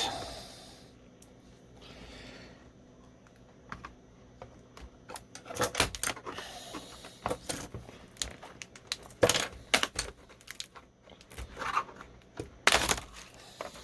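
Scattered plastic clicks and rattles from a laptop keyboard being pried and twisted out of an Acer Aspire's case, with a few sharper snaps about six, nine and thirteen seconds in.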